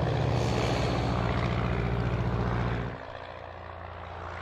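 Small propeller plane droning steadily overhead. About three seconds in it drops sharply to a quieter drone, which then slowly grows louder again as the plane approaches.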